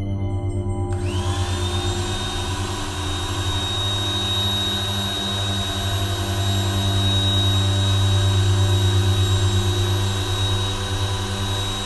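Small corded electric blower switched on about a second in: its motor whine rises quickly and settles into a steady high tone over a loud rush of air as it inflates a black plastic-bag sculpture. A low steady drone and tones carry on underneath.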